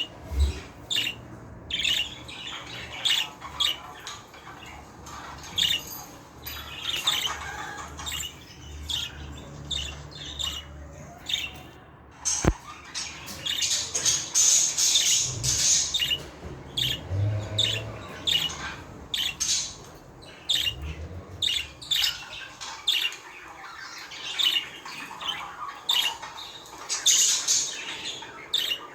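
Budgerigars chirping and chattering continuously, with many short high calls.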